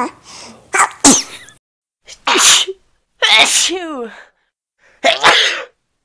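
A person sneezing several times in a row, sharp bursts about a second apart. Some end in a voiced "choo" that falls in pitch.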